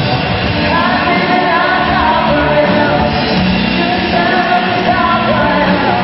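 Live rock band playing loudly, with a male lead vocalist singing over electric guitars and keyboard.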